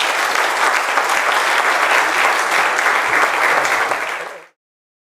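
Audience applauding, a dense, steady patter of many hands clapping that cuts off suddenly near the end.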